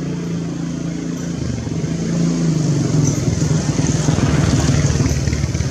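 A motor vehicle engine running close by, growing louder about one and a half seconds in.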